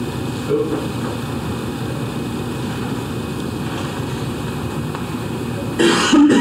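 Steady rushing room noise, such as ventilation or projector fan hum, with a short louder burst of noise near the end.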